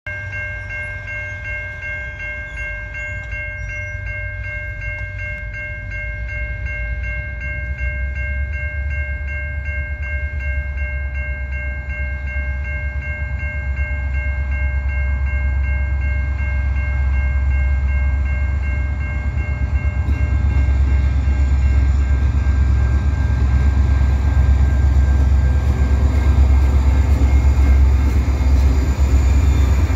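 Diesel locomotives, a CN EMD GP40-2W and GP38-2, approaching with a deep engine drone that grows steadily louder. Several steady high ringing tones sound over it and fade out about twenty seconds in.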